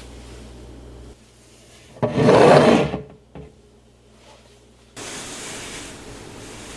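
Something scraping across a wooden surface for about a second, starting about two seconds in, then a light knock; this fits an item being slid and set down while a pantry is being organized.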